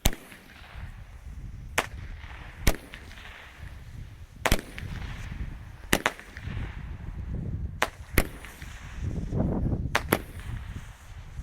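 A 30-shot, 350-gram King Bird Patriot Parachutes firework cake firing shot after shot. There are about eight sharp launch pops in all, spaced one to two seconds apart, with the first one right at the start.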